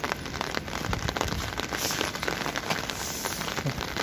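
Steady rain, with many sharp drop hits close by.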